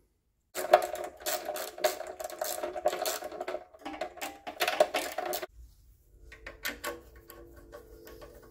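A ratchet wrench clicking rapidly as a bolt is run in and tightened, for about five seconds. After a short gap come softer, scattered ratchet clicks over a low hum.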